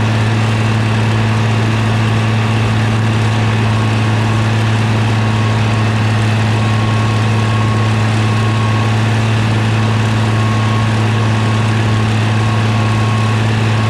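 Large farm tractor's diesel engine running steadily at a constant speed, a loud unvarying low hum.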